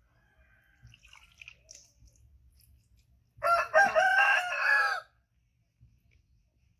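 A rooster crowing once: a loud call of about a second and a half, starting about three and a half seconds in, with a brief break near its start and a wavering final note.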